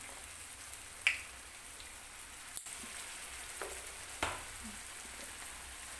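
Stuffed plantain-dough balls frying in hot oil, with a steady sizzle. A couple of short sharp clicks come about a second in and again around four seconds.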